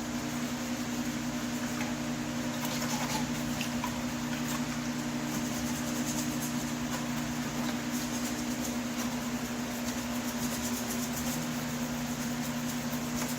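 A steady machine hum, like a fan or small motor running, with light irregular scratching and rubbing strokes over it as old paint is scrubbed off a metal vent register.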